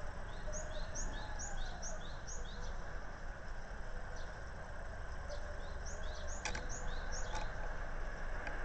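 Japanese tit song: a high two-note phrase repeated about twice a second, in two short bouts, over a steady background hiss. A sharp click comes about six and a half seconds in.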